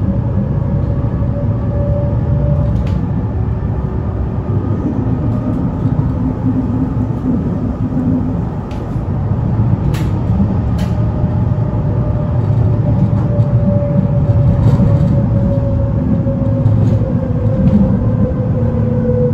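Berlin S-Bahn class 485 electric multiple unit running, heard from inside the passenger car: a steady rumble with a whine that drifts slightly in pitch, and a few sharp clicks, the loudest about ten seconds in.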